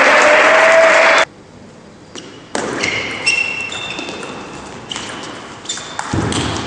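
Table tennis rally: a plastic ball clicking back and forth off the rubber bats and the table, several hits ringing briefly. Before that, applause cuts off about a second in.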